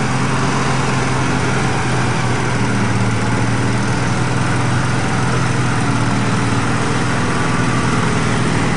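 Engine of an Argo eight-wheel amphibious ATV running steadily at an even speed while the machine travels through pond water.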